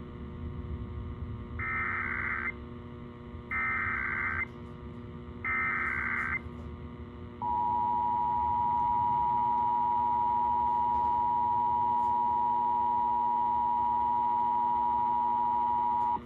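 Emergency Alert System Required Monthly Test over AM radio. Three short bursts of warbling SAME header data tones come first, each under a second long. They are followed by the EAS two-tone attention signal, a steady dual tone held for about nine seconds that cuts off abruptly. A low steady hum sits underneath.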